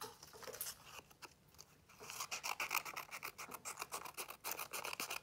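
Scissors cutting a strip of paper: light paper handling at first, then a fast run of short snips from about two seconds in.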